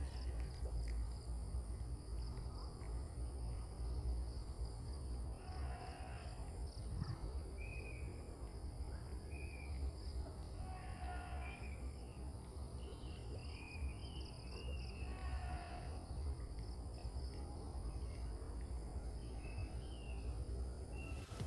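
Insects droning steadily in several high, even tones, with short chirping calls coming and going in the middle and a low rumble underneath.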